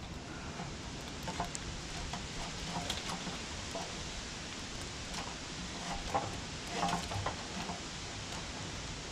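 Faint scattered clicks and light knocks of hands working hydraulic hoses and fittings, over a steady background hiss.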